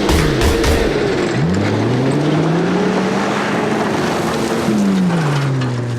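Car engine revving up, holding its revs, then dropping back to a lower steady note near the end.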